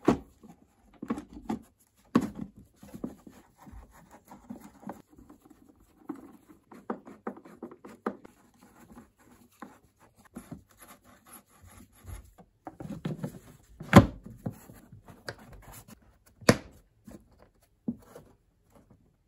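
Plastic engine-bay covers over a Mercedes-Benz W163's fuse and relay box being handled and pressed into place: plastic rubbing and scraping with irregular clicks and knocks. The sharpest knock comes about two-thirds of the way through, and another a couple of seconds later.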